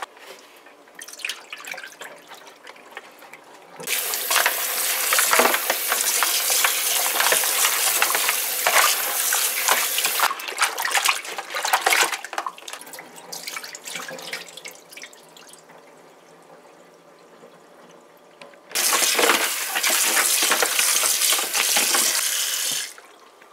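Water running from a kitchen tap into a stainless steel sink while raw goat meat is washed by hand. The tap runs in two loud spells, one from about four seconds in and another near the end that cuts off sharply. In between, hands slosh and splash the meat pieces in a bowl of water.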